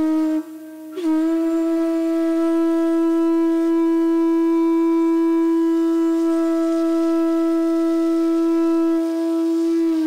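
Bamboo transverse flute (odakuzhal) playing raga Amritavarshini: a short note breaks off just under half a second in, then a long note starts about a second in with a slight bend and is held at a steady pitch.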